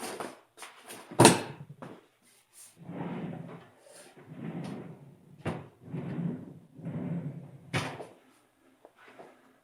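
Short bursts of a rushing, hissing sound, in the setting of forcing the pistons out of a Brembo four-piston brake caliper, with a sharp clunk about a second in, the loudest sound, and another near the end.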